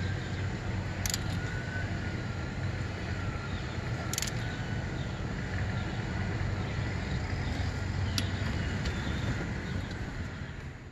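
A click-type torque wrench preset to 7 ft-lb clicking three times, a few seconds apart, as bolts reach torque, over a steady low background rumble.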